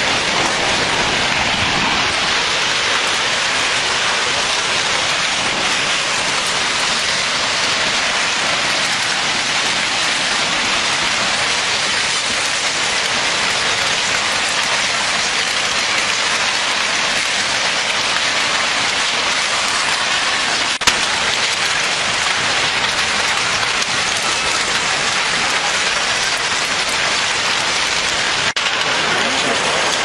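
Steady rushing noise of a tsunami flood surging through a town, carrying wreckage of houses, with a single sharp crack about two-thirds of the way through.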